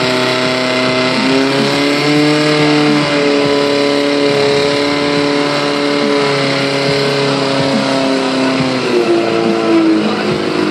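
Portable fire pump's engine running at high revs and driving water through the hoses to two nozzles during a fire-attack drill. Its pitch rises about a second and a half in, holds steady, and drops near the end.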